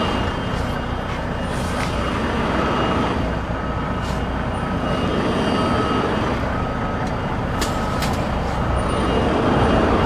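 Semi truck's diesel engine running at low speed while reversing a trailer, with a reversing alarm beeping about once a second.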